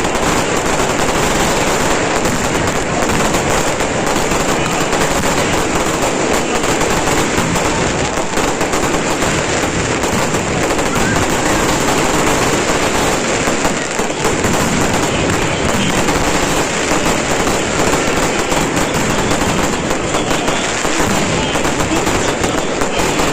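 Fireworks going off in a dense, continuous crackle of rapid bangs.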